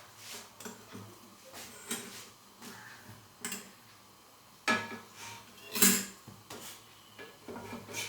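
A cooking utensil clinking and scraping against a pan while a paratha is fried: scattered short knocks, with the loudest pair about five and six seconds in.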